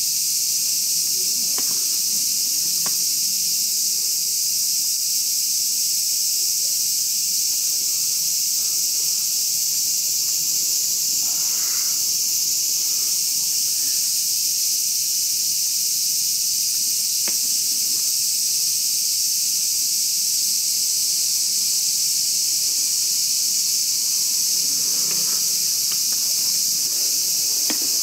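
A steady, high-pitched chorus of insects chirring, with a few faint clicks over it.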